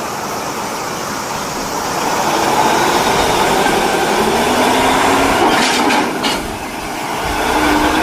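Water spraying onto a toy as it is washed, a steady rushing noise that dips briefly about six seconds in.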